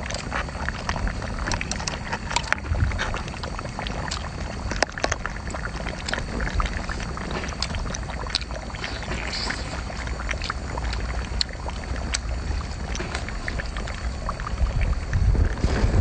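Mukbang eating sounds: chewing shellfish, with scattered small clicks of chopsticks and mouth noises, over a low steady rumble of wind on the microphone.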